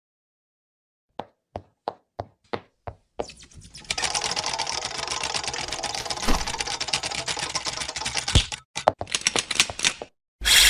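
Cartoon sound effects for an animated logo intro. There are six light taps, then a dense typewriter-like clatter with a couple of sharp thumps as letters tumble into place. A bright, loud bell-like ring starts near the end.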